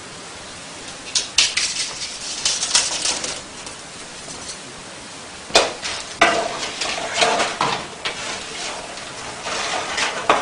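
Hands handling parts of a portable solar system model: irregular rattling and scraping of the hoops and parts, with a sharp click about halfway through, over a steady hiss.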